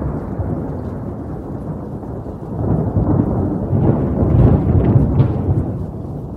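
Wind buffeting a phone's microphone in a snowfall: a loud, continuous rumbling noise that swells about halfway through.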